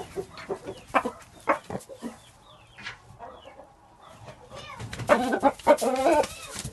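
Shamo rooster clucking in short calls, with a louder run of clucking about five seconds in.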